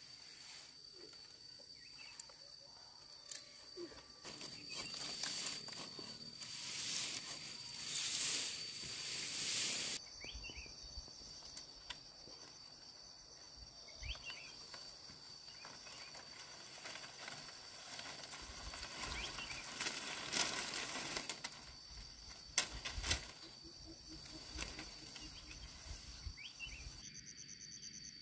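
Dry bamboo fence slats rustling and knocking together as they are pulled down and carried, in two long louder stretches with a few sharp clacks. A steady high-pitched insect trill goes on behind it.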